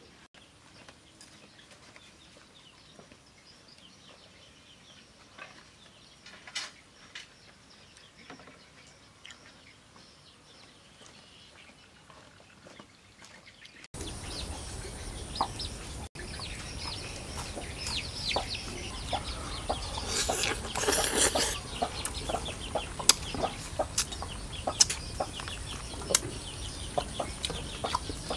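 Chickens clucking, with many short chirps and clicks. It is faint at first and becomes louder and busier after about halfway in, with a louder burst lasting about a second and a half some two-thirds of the way through.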